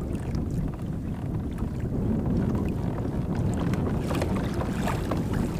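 Wind rumbling on the microphone, with small waves slapping against a kayak's hull.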